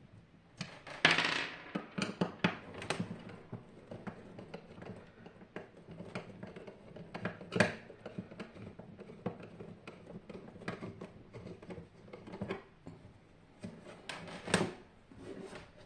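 Irregular clicks, taps and knocks of tools and metal parts being handled as a Hajdu AF-U-5 water heater is taken apart, with a few louder knocks about a second in, near the middle and near the end.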